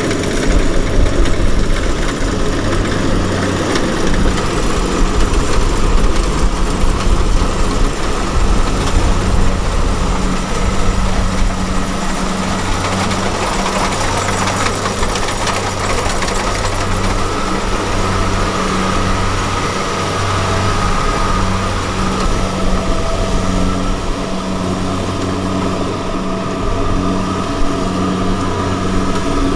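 Diesel engine of a heavy farm machine running steadily under a continuous low hum, with machinery noise over it.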